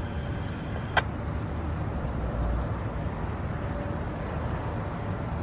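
Steady outdoor background rumble with a single sharp click about a second in. No siren winds up.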